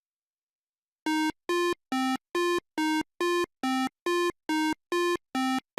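Electronic buzzy beeps: about a dozen short, evenly spaced tones of one low pitch, roughly two and a half a second, starting about a second in.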